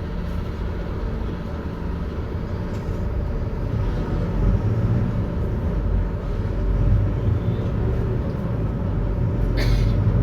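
Mercedes-Benz OF-1721 diesel city bus heard from inside while under way, its engine and drivetrain running with the differential growling, getting louder about halfway through. A short hiss near the end.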